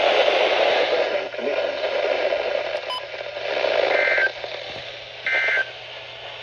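Radio static hiss, then about four seconds in two short EAS/SAME digital data bursts, a shrill two-tone warble, about a second apart. These are the end-of-message code that closes the alert broadcast.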